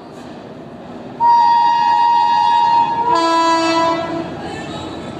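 Locomotive horn of an approaching express train: one long blast starting about a second in, switching to a lower note for about a second before it stops, over a steady rushing noise of wind and the oncoming train.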